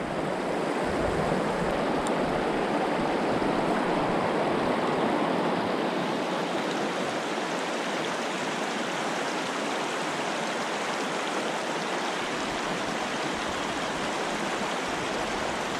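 A shallow river running fast over a stony riffle: a steady rush of water.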